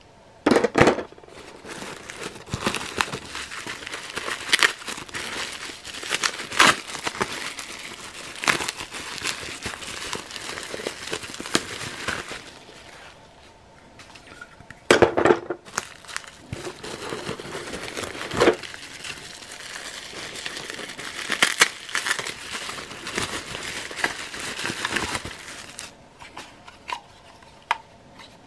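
Crinkling and rustling of plastic wrapping and crumpled newspaper packing as loose plastic toy parts are dug out of a box, with sharp crackles and small knocks. It comes in two long stretches with a pause about halfway, then fades to a few faint clicks near the end.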